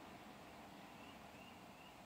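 Near silence: faint room noise, with a few faint short high squeaks about half a second in and again near the end.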